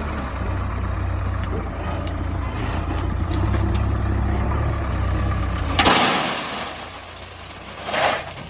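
Heavy machinery's diesel engine running steadily at a low hum for about six seconds, then dropping away abruptly with a loud rushing burst. A second, shorter burst comes near the end.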